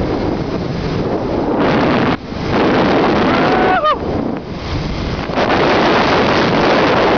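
Rushing wind buffeting the microphone during a fast descent along a rope line, rising and falling in gusts. A short whistle-like tone slides downward about four seconds in.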